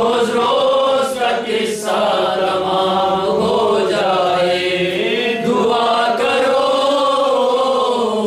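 A man singing an Urdu noha, a Shia mourning elegy, in long held notes that glide up and down in pitch without clear words.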